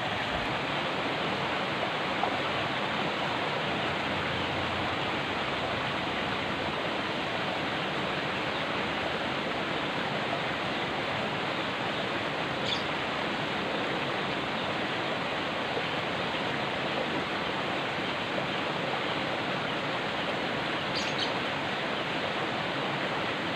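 Steady rush of water flowing along a small drainage ditch, with two faint, short high-pitched sounds, one about halfway through and one near the end.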